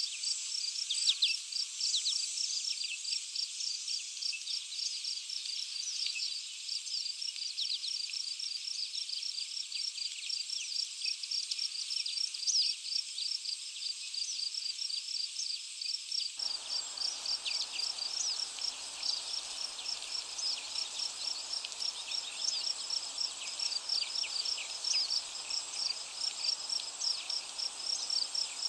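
Outdoor nature ambience: a steady, rapid, high-pitched insect chirping, with many short downward bird chirps scattered over it.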